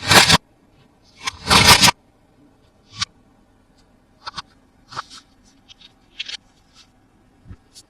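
Toys being handled by hand: two noisy scrapes, the second lasting most of a second, then scattered light clicks and taps.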